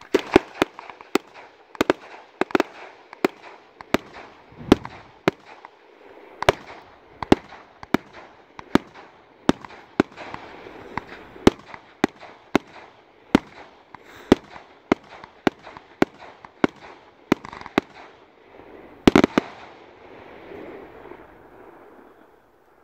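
Ghengis Fireworks Category 4 cake firing a steady volley of shots, about two a second, with a continuous hiss and crackle between them. A louder cluster of shots comes near the end, then the cake finishes and the crackle fades away.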